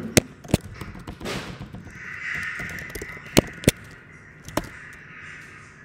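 Sharp keystrokes on a laptop keyboard: a handful of loud, separate clicks spread over a few seconds. A hoarse, noisy sound runs from about two to three seconds in.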